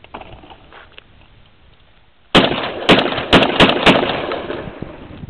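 12-gauge semi-automatic shotgun fired rapidly, about five shots in roughly a second and a half, starting about two seconds in, with the reports echoing and dying away afterwards.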